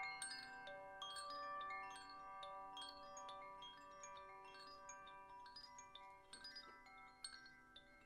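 Wind chimes ringing softly, with many irregular strikes leaving overlapping high tones that slowly fade.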